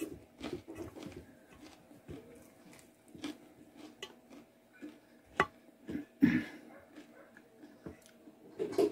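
Close-up eating sounds: chewing with the mouth full and fingers picking at food in a metal basin, scattered short smacks and clicks. The food is crispy fried sardine with rice and cassava flour, eaten by hand.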